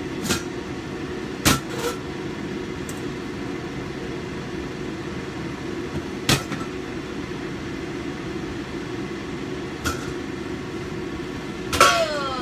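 Stainless steel pot and lid knocking against the gas stove as the pots are moved between burners: single sharp clanks about a second and a half in and again around six seconds, then a metallic clatter with a short ring near the end as the lid is lifted off. A steady hum runs underneath throughout.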